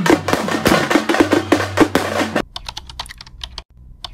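Drum-heavy music with rapid strokes that cuts off about two and a half seconds in. Keyboard-typing clicks follow, a sound effect for the text being typed out.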